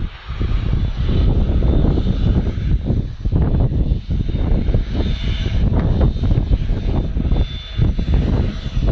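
Twin jet engines of an Airbus A330-300 running close by, a loud deep rumble that rises and falls unevenly, with a faint high whine over it.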